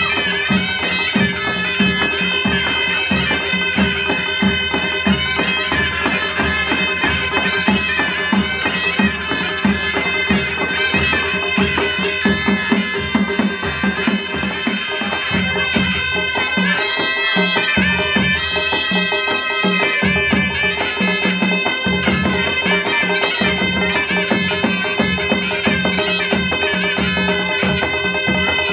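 Nepali Panche Baja band playing: brass trumpets carry a reedy melody over a steady held note, with a dholak-style double-headed drum beating a quick, even rhythm.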